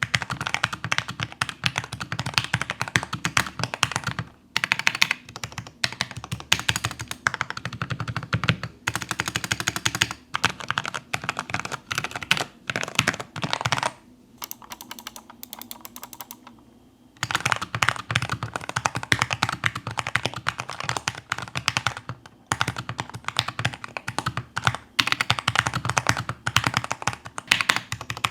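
Typing on a modified Keychron K6 mechanical keyboard: fast, continuous key clacks, with a pause of about three seconds around halfway through before the typing resumes.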